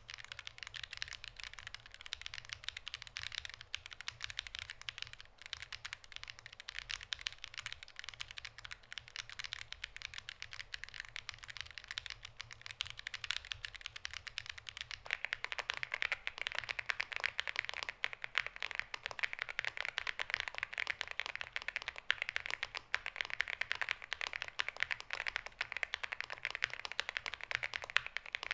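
Steady, rapid typing on a NuPhy GEM80 mechanical keyboard with Lemon switches, a dense stream of keystroke clacks. About halfway through the sound turns fuller and a little louder, with more low end.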